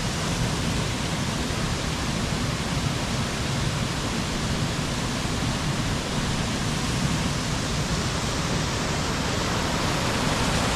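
Mountain stream or waterfall: a steady, unbroken rush of falling water.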